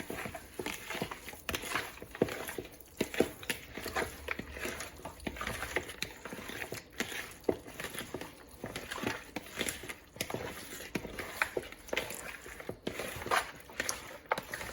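Hands rubbing browning and seasonings into raw chicken pieces: a string of irregular, soft wet squelches and smacks.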